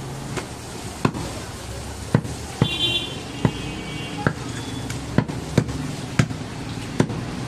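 Heavy butcher's cleaver chopping goat meat on a thick wooden chopping block: about nine sharp knocks at uneven intervals.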